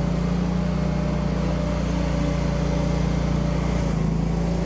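Engine of a self-propelled JayLor A100 TMR feed mixer running steadily while the mixer backs up, a constant hum whose pitch drops slightly about four seconds in.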